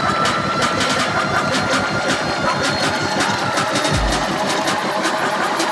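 An engine running steadily and loudly, with a short deep boom about four seconds in.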